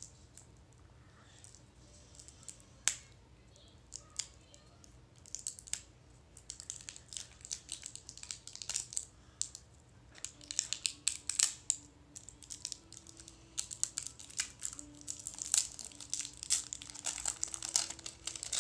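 Plastic packaging being crinkled and torn open by hand: a few sharp crackles at first, then a dense run of crackling from about five seconds in.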